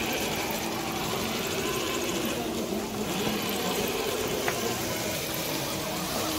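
Electric motor and gear drive of an RC crawler truck whining steadily, its pitch wavering slightly up and down with the throttle.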